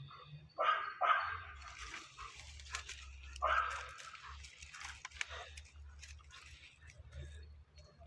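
A few short animal calls, the loudest about a second in and again about three and a half seconds in.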